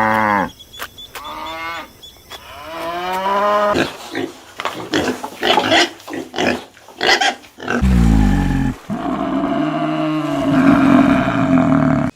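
Recorded farm and wild animal calls, one kind after another: a falling pitched call at the start, a couple of rising pitched calls, then a quick run of short harsh calls from about four seconds in, and a low drawn-out call in the last four seconds.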